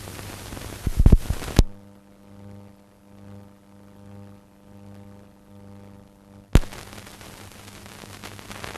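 Steady mains hum with a ladder of harmonics on an old film soundtrack, set between loud clicks and stretches of hiss and crackle.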